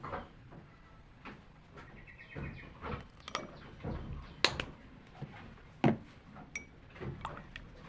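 Utensils and containers being handled while a remedy is prepared: irregular clicks and knocks, the loudest about four and a half and six seconds in.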